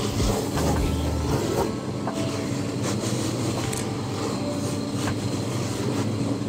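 Shoe finishing machine running steadily, with a leather shoe pressed and rubbed against its spinning buffing wheel as it is buffed.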